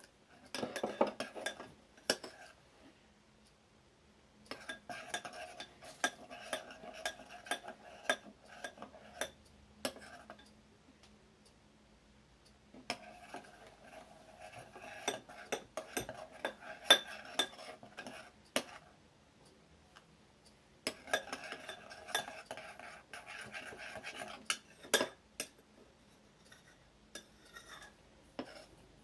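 A spoon stirring homemade slime (glue, shaving foam and borax water) in a bowl, scraping and clicking against the bowl in about five bouts of a few seconds each, with short pauses between.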